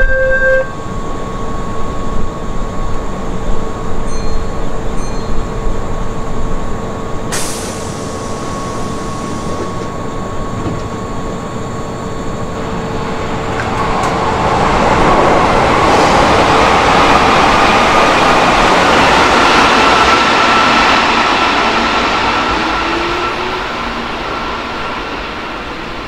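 Keihan electric commuter trains at a station platform. There is uneven clattering for the first few seconds, then a steadier running rumble. About halfway through it swells to its loudest for several seconds and then fades away.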